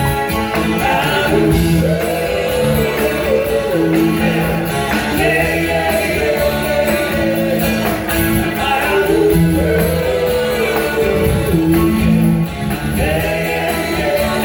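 Live rock band playing a passage without recognisable lyrics: a melody line bends and glides over a steady beat, with guitar.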